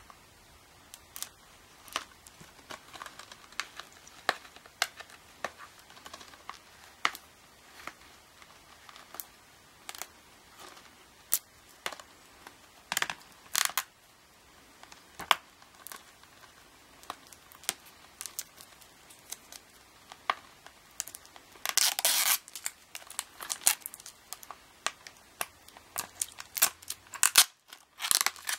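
Plastic shrink wrap being slit with a knife and peeled off a Blu-ray case: scattered crinkles and clicks, with a longer, louder tearing crinkle about two-thirds of the way through.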